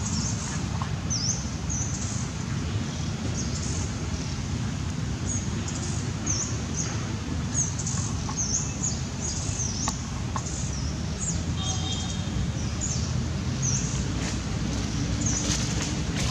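Small birds chirping: many short, high chirps, some sweeping up or down, over a steady low background rumble.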